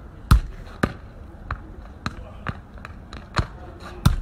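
A football being juggled with the feet: about eight sharp thuds, roughly two a second at an uneven pace, as the foot kicks the ball.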